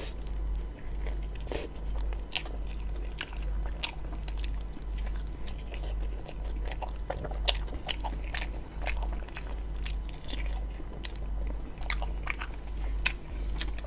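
Close-miked eating of a chicken roti john: a bite into the soft bun, then continuous chewing with frequent wet mouth clicks and smacks, over a steady low hum.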